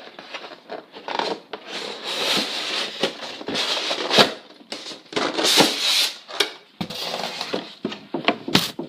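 Packaging being handled as a toy-gun box is opened and its contents moved: irregular rustling and crinkling with scattered light clicks and knocks.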